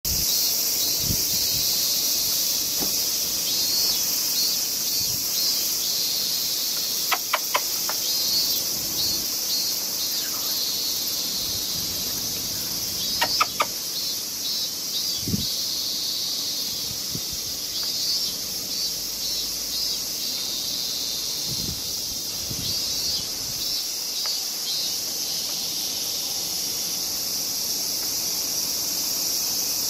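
A steady, high-pitched chorus of summer insects, with pulsing calls coming and going over it. Two short runs of quick clicks come in, about seven and thirteen seconds in.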